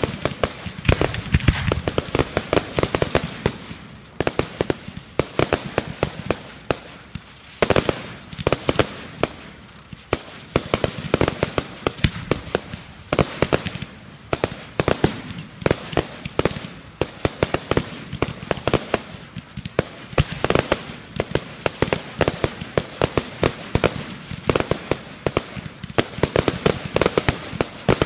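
Fireworks going off in a dense, irregular barrage of sharp bangs and pops, several a second, over a continuous crackle.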